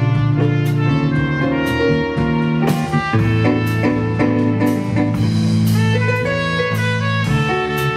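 Live jazz quartet playing: a trumpet melody over electric bass, drum kit with regular cymbal strokes, and digital stage piano.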